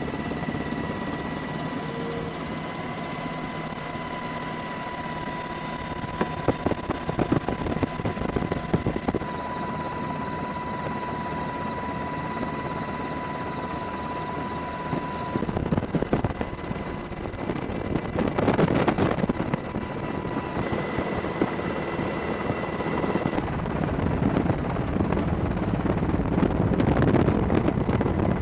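Helicopter noise heard from aboard the aircraft: a steady high whine over continuous rotor and engine rush, with a few louder buffeting stretches.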